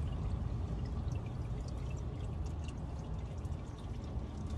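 Hot, black used engine oil pouring steadily out of a 2018 Honda HR-V's oil pan through the open drain-plug hole.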